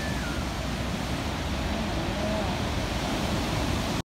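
Ocean surf breaking and washing up a beach, a steady rushing noise that cuts off abruptly near the end.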